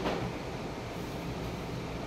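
Steady rushing noise of rain heard through a window, with a brief swish right at the start.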